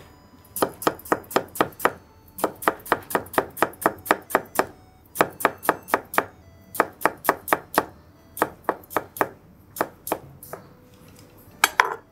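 Japanese kitchen knife cutting a cucumber on a cutting board in quick, even taps, about four or five a second, in four runs with short pauses between: the many shallow diagonal cuts of the 'snake cut' (jabara), which slice partway without going through.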